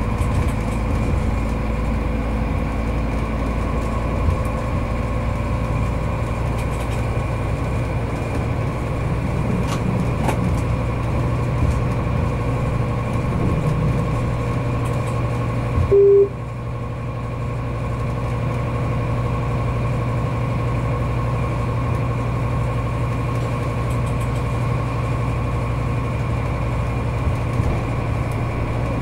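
Steady drone of a diesel railcar's engine and wheels on the track, heard inside the driver's cab, with a few faint clicks from the rails. About halfway through, a short loud beep sounds in the cab.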